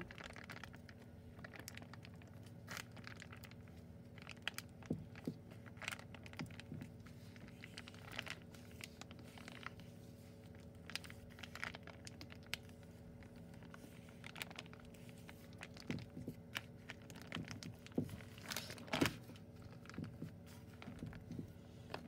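Plastic zip-top bag of melted slime pressed and squeezed by hand, giving faint, irregular crinkles and crackles of the plastic, with a louder crackle near the end.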